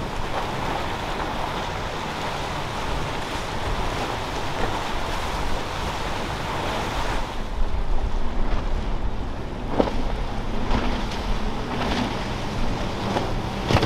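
Surf and rushing water with wind buffeting the microphone. About halfway through the hiss thins, a few sharp knocks sound, and a faint low engine hum comes in near the end.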